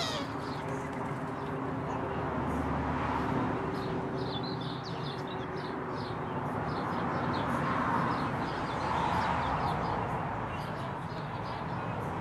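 Short, high bird chirps, clustered about four to six seconds in, over a steady low background rumble.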